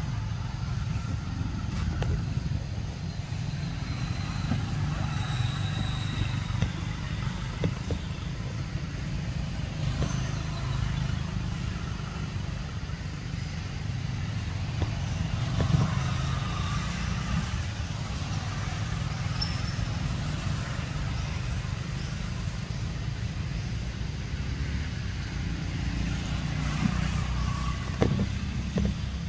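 A steady low outdoor rumble, with a few faint clicks and brief faint high chirps over it.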